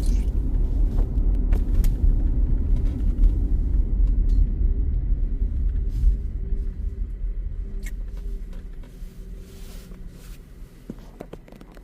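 Low road and engine rumble inside a moving car, with a few light clicks; it dies down over the second half.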